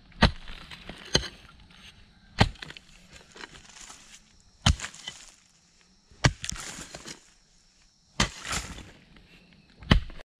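A hoe chopping into a dry earth bank: seven sharp blows a second or two apart, each followed by a short rustle of loosened soil and roots falling away.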